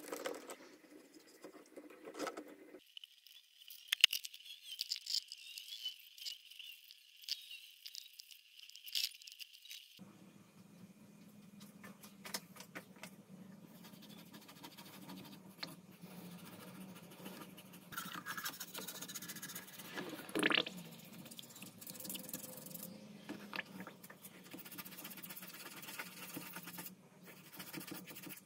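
A toothbrush scrubbing rust off an old kerosene lamp's metal parts underwater in a citric acid and vinegar bath, with scattered light clicks and scrapes against the plastic tub. There is a sharp knock about four seconds in.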